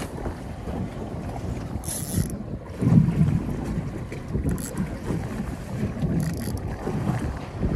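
Strong wind buffeting the microphone on a small boat in rough, choppy water, as a gusting low rumble. Three brief high hisses come through about two, four and a half and six seconds in.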